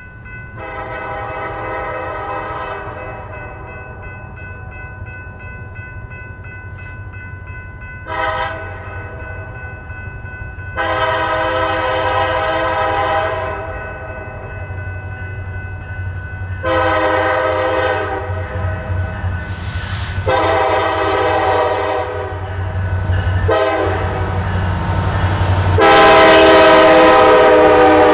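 Freight locomotive air horn sounding a string of long and short blasts, led by Norfolk Southern SD70ACC 1810. The steady low rumble of the diesel locomotives runs underneath. The blasts grow louder as the train draws closer, the last and loudest one near the end.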